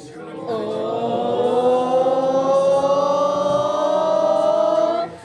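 Football supporters holding one long chanted note in unison that slowly rises in pitch over about four and a half seconds, then cuts off suddenly.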